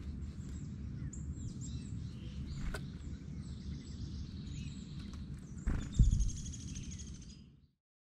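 Wild birds chirping over a steady low outdoor rumble, with a sharp thump about six seconds in, the loudest moment, followed by a short high call. The sound fades out near the end.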